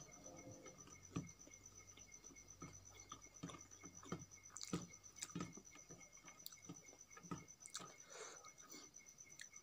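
Fingers mixing cooked rice with chutney on a steel plate: soft, irregular squishes with light clicks of fingertips against the metal, quietly throughout.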